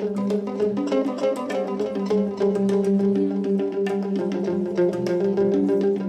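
Live instrumental music from a hang drum and a plucked electric guitar: quick ringing notes over a steady low drone.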